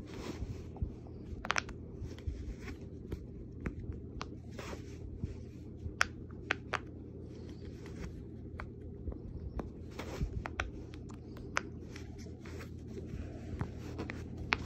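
Bubbles of a large 225-bubble silicone pop-it fidget toy being pressed in with the fingertips, making irregular soft pops and clicks, a few sharper than the rest.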